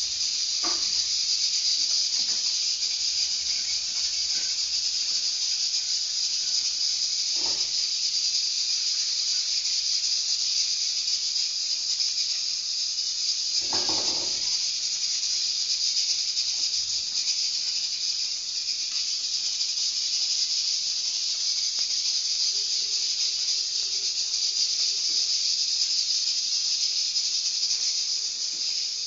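Small pieces of pork belly (torresmo) frying in oil, a steady sizzle. A few light clinks of a utensil against a pan, the loudest about halfway through.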